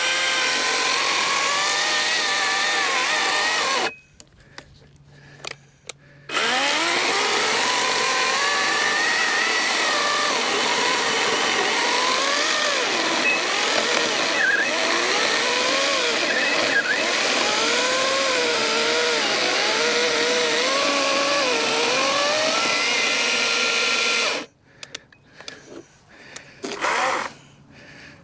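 Battery-powered Wild Badger 16-inch electric chainsaw cutting through a log of about 8 to 9 inches. Its motor whine sags and recovers in pitch as the chain works through the wood. It stops about four seconds in, starts again a couple of seconds later, runs for a long cut that ends about four seconds before the finish, then gives a few short bursts.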